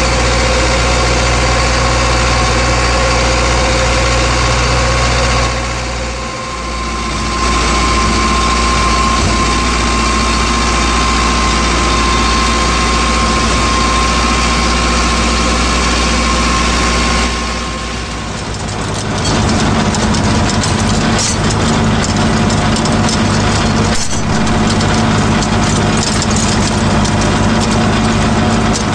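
Mahindra Arjun Novo 605 DI-i tractor's diesel engine running steadily while its rotary tiller churns the soil. The tone changes abruptly twice, about six and eighteen seconds in, and turns rougher after the second change.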